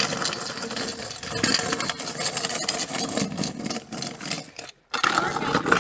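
Homemade cast-aluminium scooter wheels rolling over the ground with a loud, rough grinding rattle. The wheels are not perfectly round. The sound drops out for a moment about five seconds in, then comes back.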